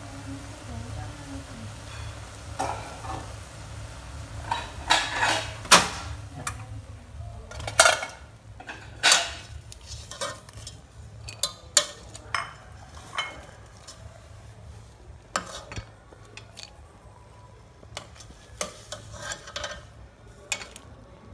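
Metal spoon stirring shrimp in an aluminium pot, scraping and clinking against the pot's side and bottom in a string of sharp knocks that come thickest in the middle and thin out near the end. A steady low hum runs underneath.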